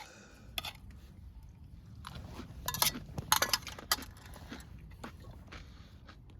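Eating sounds: crunchy chewing mixed with a few sharp clicks and clinks of utensils against a dish, busiest between about two and four seconds in.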